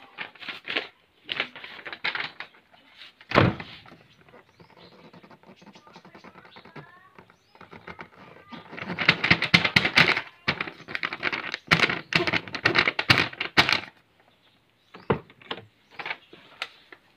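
A Mitsubishi Pajero Sport's door shut once about three seconds in with a solid thunk against its newly fitted rubber seal. From about nine seconds, a sheet of paper caught between the closed door frame and the seal rustles and crackles as a hand tugs at it to test how tightly the seal grips.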